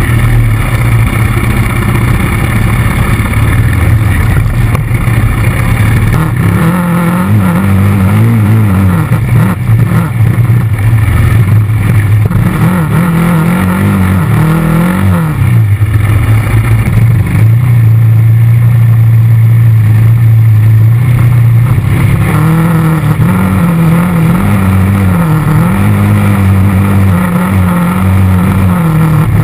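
ATV engine running loud and close under riding load, its revs swinging up and down again and again as the throttle is opened and eased, holding steady for a few seconds midway.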